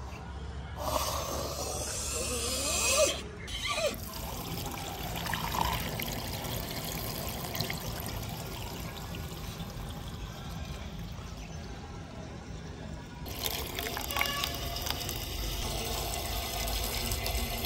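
Liquid siphoned through a hose pouring into a plastic funnel, a steady splashing trickle. There are louder, wavering sounds for the first few seconds.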